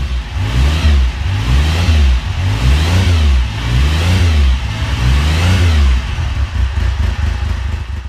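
A motorcycle engine revved repeatedly, the throttle blipped about once a second so that the pitch rises and falls in regular swells.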